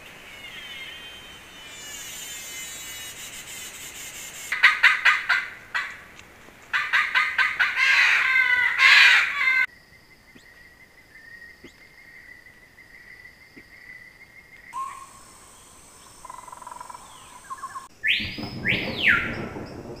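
Rainforest sounds from several short clips cut together: a burst of loud, dense bird calls in the middle and two loud falling whistles near the end, between stretches of steady high-pitched buzzing.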